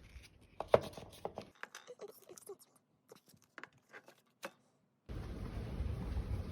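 Light clicks and taps of eating utensils on a plastic lunch box, with one sharper click under a second in and a few soft ticks after. About five seconds in, a steady rushing noise starts.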